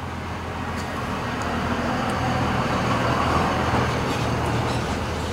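Strong wind gusting outdoors, a rushing noise that swells over a couple of seconds and then eases, over a steady low rumble.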